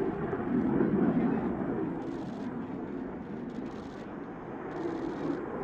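HAL Tejas fighter's single General Electric F404 turbofan heard during a steep climb: a steady rushing jet noise, mostly low in pitch, that swells about a second in, eases off, then builds again near the end.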